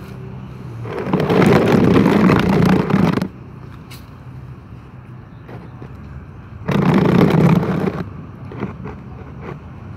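Cats chewing and licking food from plastic bowls, heard as faint scattered clicks. Two loud bursts of rushing noise cover them, one of about two seconds starting a second in and a shorter one near the end, each starting and stopping abruptly.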